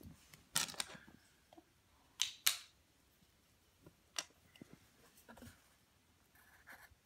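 Scattered light clicks and knocks of handling: the phone camera being moved about and small number cards tapped onto the wooden board. Faint pencil scratching on paper near the end.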